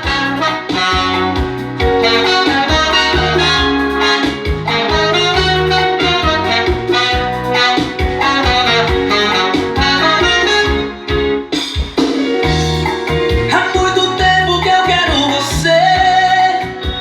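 Loud music played on a car sound system: an instrumental passage of a Brazilian pop song, with a heavy repeating bass line, drum hits and a melody over it. It briefly drops out about eleven seconds in.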